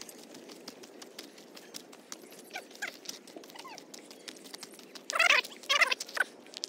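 An animal calling: two loud calls close together about five seconds in, then a shorter one, over faint scattered clicks.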